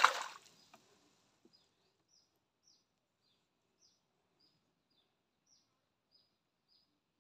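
A short splash of water right at the start. After it, a faint series of short, high chirps from a bird, each dipping slightly in pitch, repeated about twice a second.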